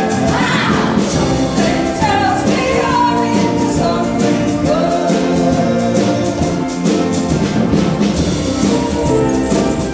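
A stage cast singing a song together over instrumental accompaniment, at a steady loud level.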